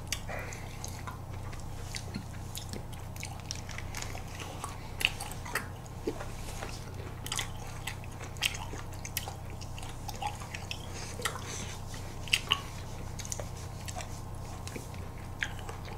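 Eating sounds from a Dwaeji Bar, a chocolate-coated ice cream bar: irregular crisp clicks and crackles as the crunchy coating is bitten and chewed, picked up close to the microphone.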